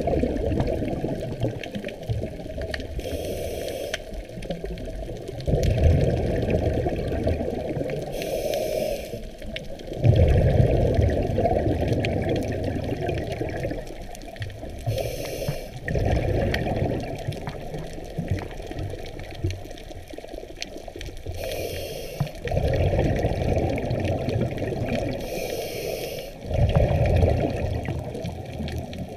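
Scuba diver breathing through a regulator underwater, about five breaths, one every five to six seconds. Each is a short hiss of inhaling through the demand valve, then several seconds of low rumbling from the exhaled bubbles.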